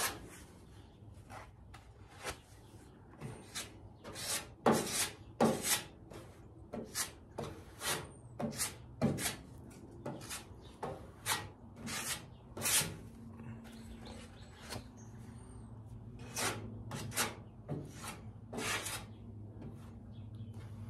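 Metal body-filler spreader scraping body filler across a car's steel fender in short, irregular strokes, about one a second.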